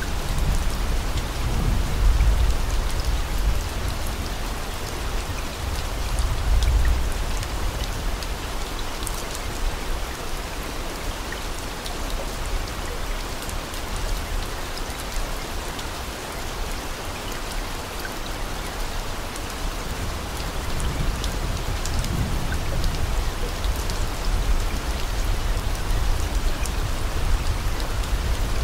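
Steady, dense rain falling with fine patter, and deep low rumbles swelling underneath a few times, about two seconds in, around seven seconds, and again in the last third.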